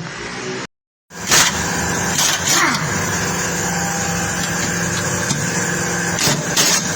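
Car engine idling steadily after a brief silent gap about a second in, with a few sharp knocks over it.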